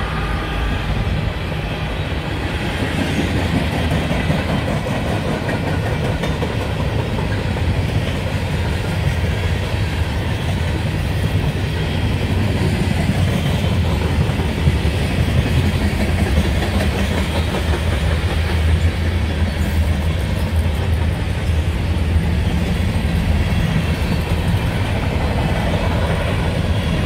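Canadian Pacific freight train's cars, steel coil cars and covered hoppers, rolling past at close range: a steady rumble of steel wheels on rail with clickety-clack over the rail joints.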